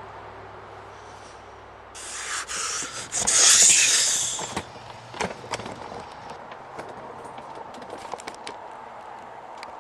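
A loud hissing rush about two and a half seconds long, starting and stopping abruptly, followed by scattered light clicks.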